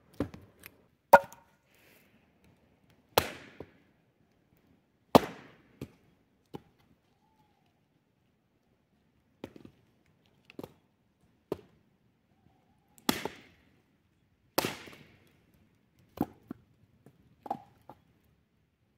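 Wood being chopped: a run of irregular sharp strikes, five of them loud with a short ringing tail, between lighter knocks, with a pause of about two seconds around the middle.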